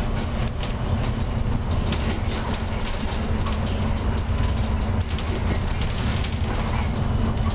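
Volvo B7TL double-decker bus under way, heard from the upper deck: a steady low diesel engine and road rumble, with frequent small clicks and rattles over it.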